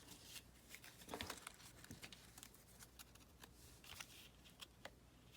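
Near silence with faint handling of paper: soft rustles and scattered light ticks.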